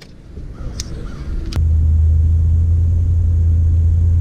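A loud, steady low rumble that starts abruptly about a second and a half in and holds at one level. A single sharp click comes just before it.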